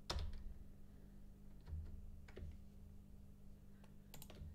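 A few faint, scattered clicks of a computer mouse and keyboard over a steady low hum.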